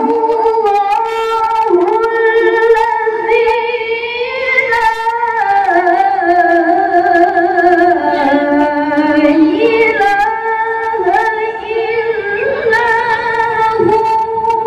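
A woman reciting the Quran in melodic tilawah style into a microphone: long, ornamented held notes that wind up and down in pitch.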